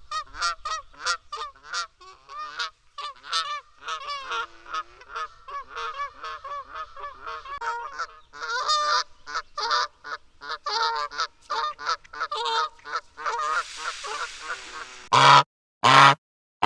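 Canada goose honking over and over in short calls, several a second. A brief hiss-like noise comes near the end, followed by a few much louder honks broken by sudden silences.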